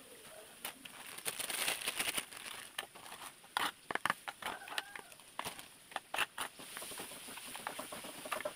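Thin plastic bags being handled, crinkling in short rustles, with sharp clicks and clinks scattered through.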